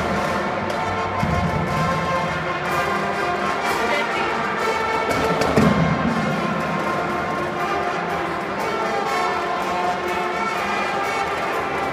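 Marching drum corps playing: a brass section sounding chords over drum hits.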